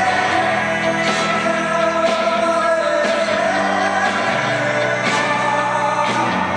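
Live band music with singing; one voice holds a long note through about the first half.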